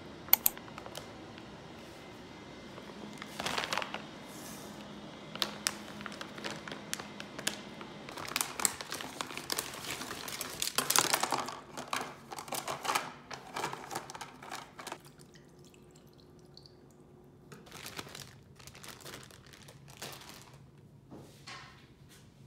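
Plastic food packaging crinkling and rustling as it is handled, with knocks and clicks from a plastic container on a countertop. The rustling comes in irregular bursts, heaviest through the middle, and thins to a few faint handling noises near the end.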